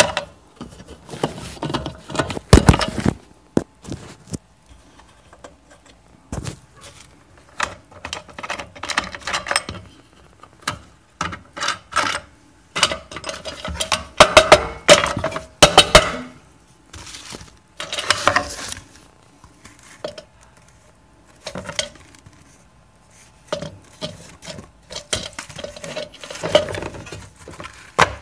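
A metal tool and fingers prying and picking small CNC-milled plastic collars loose from their sheet on a CNC router's metal slotted bed: irregular clinks, clicks and scrapes, coming in short bursts with quiet gaps between.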